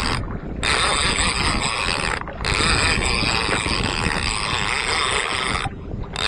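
Steady mechanical running noise mixed with wind and water rush from a small outrigger fishing boat under way, while a trolling reel is cranked to bring in a hooked fish. The hiss drops out briefly three times: about half a second in, just after two seconds, and near the end.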